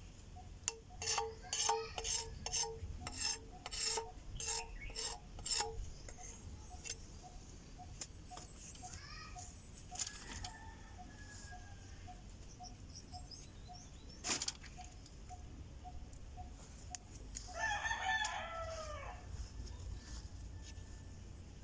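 A rooster crows once, a single call of about two seconds near the end. Earlier, a quick run of sharp knocks sounds for the first several seconds, and faint short calls and a soft repeating chirp carry on in the background.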